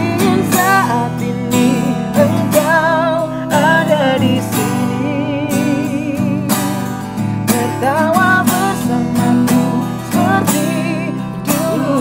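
Music: a strummed acoustic guitar under a singing voice holding wavering notes.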